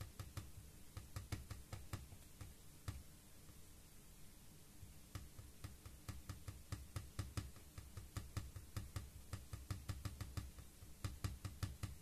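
Small irregular clicks and light taps from hand work with a small tool on an opened laptop's mainboard and plastic chassis, coming in quick clusters.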